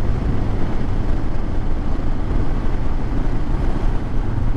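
Royal Enfield Himalayan motorcycle's single-cylinder engine running steadily while being ridden, a low even hum under a constant rush of noise.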